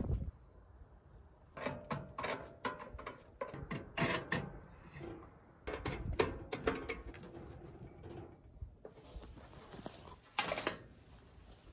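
Stainless-steel stove parts clicking, clinking and scraping as the front grate and panel are worked out of and back into the stove body by hand: a run of light, uneven metal knocks. One louder knock near the end as the stove is set down.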